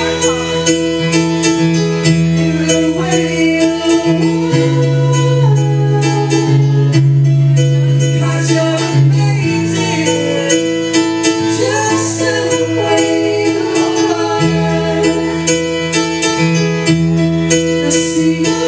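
Small vocal group singing into microphones over recorded backing music with guitar and a steady beat, amplified through a PA system.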